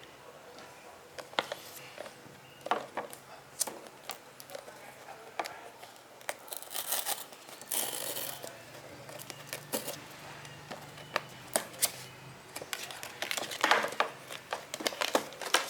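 Packaging of a GoPro Hero 8 Black being opened by hand: crinkling and tearing of wrapping, with many sharp clicks and taps of the box and its parts. There are longer rustling bursts about halfway through and again near the end.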